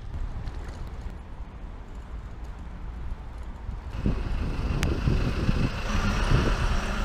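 Low rumble of wind on the microphone of a bicycle-mounted camera while riding, with tyre and road noise. About four seconds in it grows louder and hissier, with a single sharp click a little later.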